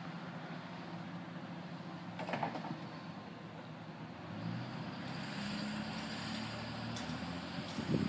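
Street traffic with a vehicle engine that grows louder from about halfway through as a van drives closer.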